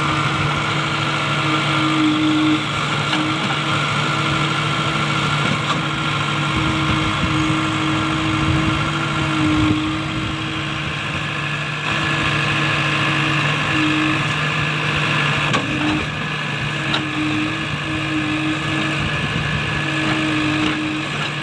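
Heavy diesel engine running steadily at a constant speed, with a few faint clicks.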